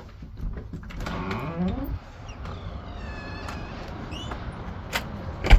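A low animal call rising in pitch for about a second, followed by a few faint high chirps, then one sharp knock near the end.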